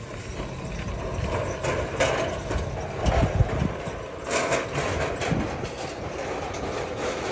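Metal flatbed cart rolling over concrete: a low rumble with uneven rattles, loudest in a few stretches.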